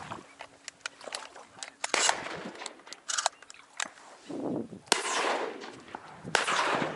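Shotguns of many duck hunters firing across the marsh, a near-constant scatter of distant shots with louder, nearer ones about two seconds in, near five seconds and a little past six. The barrage sounds like a war zone as the ducks come in at first light.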